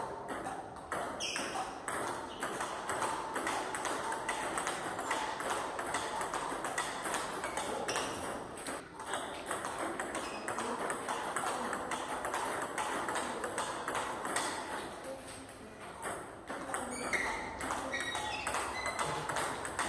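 Table tennis rally: the ball ticking off the rackets and bouncing on the table in a steady, continuous back-and-forth rhythm, as in a forehand-to-backhand down-the-line drill.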